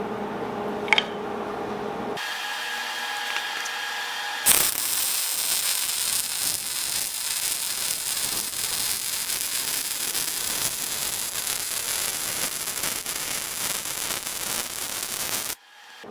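Wire-feed (MIG) welder arc laying a bead: a steady, dense crackling hiss that starts about four and a half seconds in and cuts off suddenly near the end. Before it there is quieter shop sound with a single click about a second in.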